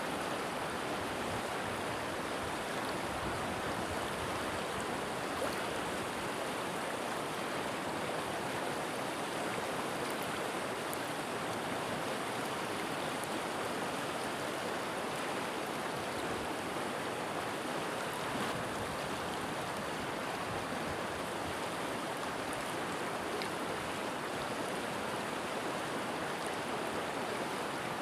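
River water rushing and babbling over rocks, a steady, even flow.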